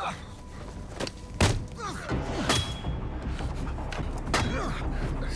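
A series of heavy thumps and impacts, the loudest about one and a half seconds in, with music underneath.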